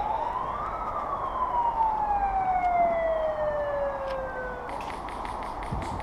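A siren winds up to its highest pitch less than a second in, then falls slowly for about four seconds and cuts off. A quick run of clicks follows near the end.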